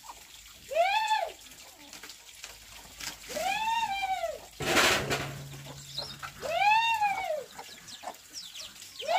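A cat meowing over and over: three drawn-out meows, each rising then falling in pitch, spaced about three seconds apart, with a fourth starting at the end. A brief rush of noise comes about halfway through.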